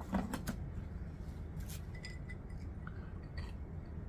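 Light clicks and clinks of tableware and a plastic cup being handled on a table, scattered irregularly. There is a brief, slightly louder mouth sound just after the start.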